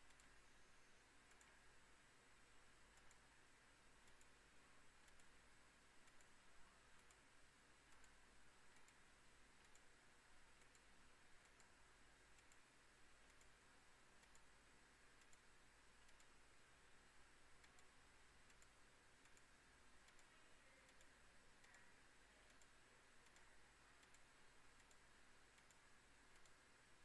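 Near silence: faint steady hiss with faint, evenly spaced ticks.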